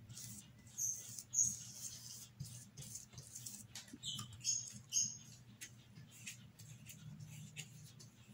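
Paintbrush bristles scratching across cardboard poster board as red paint is brushed on, in short clusters of strokes: one about a second in and another around four to five seconds in.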